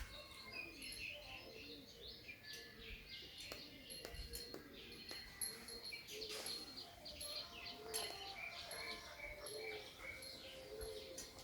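Faint birds chirping and twittering, many short high calls throughout, with a few soft knocks.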